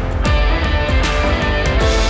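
Rock background music with electric guitar over a driving drum beat.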